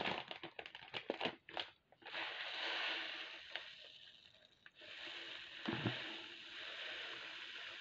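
Plastic bags of glass seed beads crinkling and clicking as they are handled, then a steady faint hiss of tiny beads pouring and rattling into a clear plastic container.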